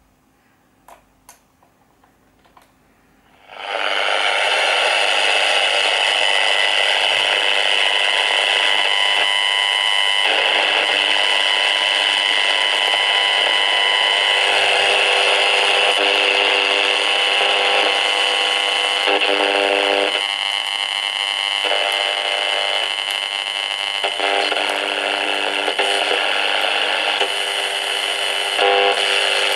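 AM pocket radio picking up electrical interference from a washing machine's electronic control panel: a loud, harsh hiss laced with steady buzzing tones that starts abruptly about three and a half seconds in, after a few faint clicks, and shifts in texture every few seconds.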